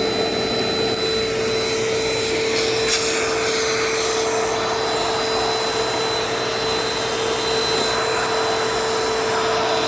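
Dirt Devil Dynamite vacuum cleaner running steadily, a constant motor hum with a thin high whine, with a brief click about three seconds in.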